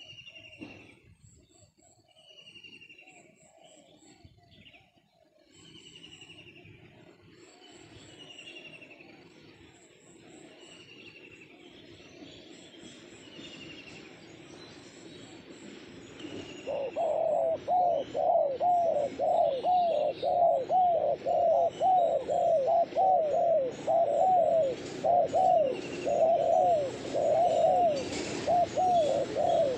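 Spotted dove cooing: faint coos at first, then about halfway in a loud, fast run of coo notes close by, about two a second. In the first half a small bird repeats thin, falling whistles.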